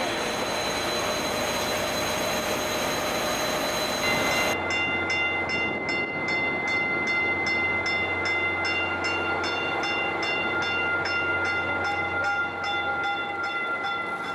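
Caltrain passenger train at a station platform. Steady train noise, then about four and a half seconds in the sound changes abruptly to a hum with several steady high tones and a regular tick about two to three times a second.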